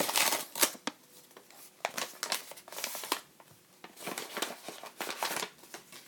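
Paper envelope being opened and handled by hand: rustling and crinkling paper in several short, irregular bursts.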